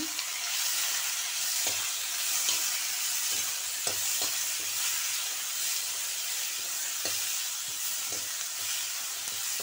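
Chopped green capsicum and tomato sizzling as they sauté in hot oil in a metal kadai, a steady frying hiss with a few faint clicks.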